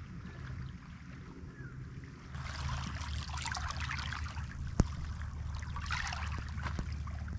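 Shallow water washing and trickling over beach pebbles, starting about two seconds in and going on in irregular splashes. A low steady hum runs underneath, and there is one sharp click about halfway through.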